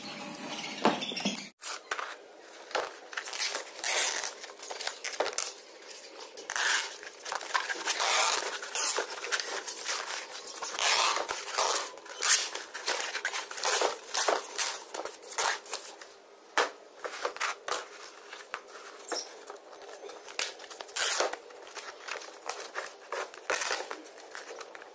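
Old painted canvas being ripped and cut away from its frame: a run of short, irregular rips and scrapes.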